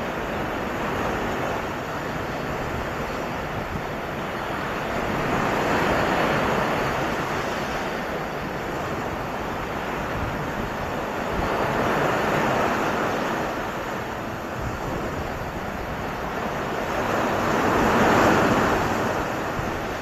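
Sea surf breaking and washing up a sandy, rocky shore. The roar swells with each wave, about every six seconds: three times, the last the loudest.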